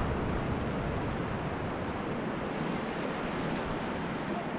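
Steady rushing of whitewater river current around a raft.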